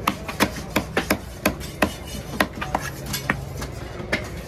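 Knife chopping red snapper into chunks on a wooden log chopping block: a quick, uneven run of sharp chops that spreads out after about two seconds.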